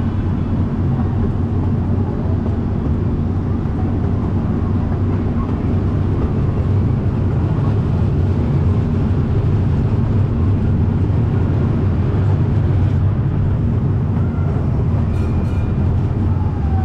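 Casey Jr. Circus Train rolling along its track, heard from aboard a passenger car as a steady low rumble.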